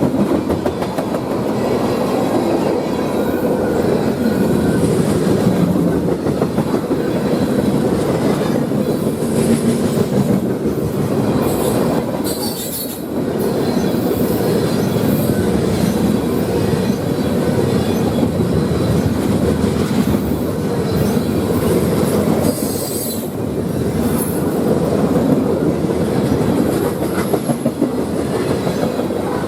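Freight train cars rolling past with wheels clicking over rail joints, and a few brief high-pitched wheel squeals.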